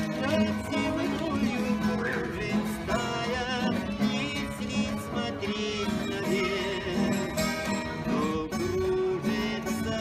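Background music with plucked strings and a singing voice.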